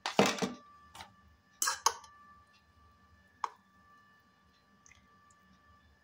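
A utensil knocking and clicking against a plastic bowl while boiled noodles are tossed with oil: a handful of sharp knocks, the loudest at the start, then single and paired clicks over the next few seconds.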